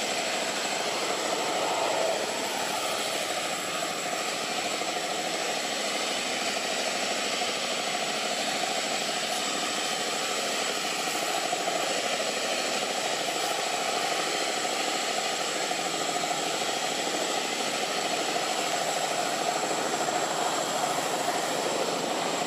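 Steady outdoor background noise, an even hiss with a thin, high, steady tone above it.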